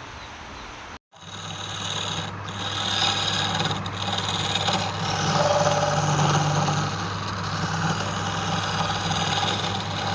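Electric wood lathe running with a steady motor hum while a cutting tool rasps against the spinning wood, starting about a second in.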